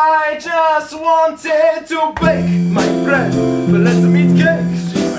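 A male voice singing a show tune, opening with long held notes unaccompanied; about two seconds in, keyboard accompaniment with sustained chords and a bass line comes in under the singing.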